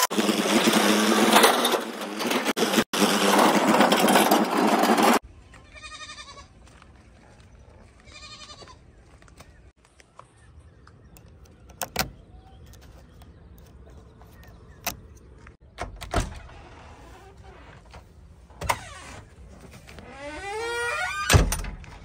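Loud steady machinery noise from the tractors and backhoe for about five seconds, cut off suddenly. Then a quieter stretch with a few sharp clicks of the backhoe's cab window latch being worked by hand, and goats bleating, loudest near the end.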